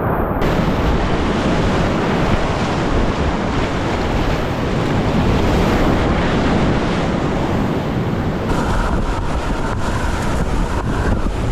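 Whitewater river rapids rushing, loud and steady, with wind buffeting the microphone.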